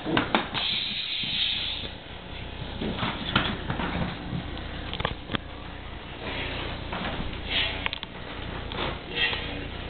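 A dog sniffing in short, repeated noisy bursts, with scattered clicks and taps in between.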